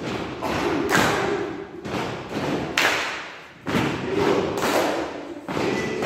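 A group of people beating out a steady rhythm of loud thumps, about one a second, each one echoing briefly, with voices mixed in underneath.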